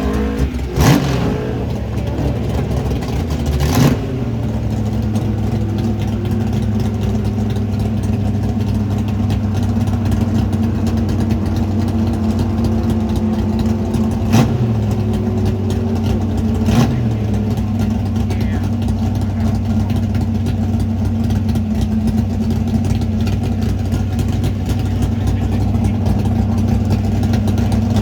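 Car engine pulling through the gears, with two sharp knocks in the first four seconds, its note slowly climbing, then settling into a steady drone at cruise.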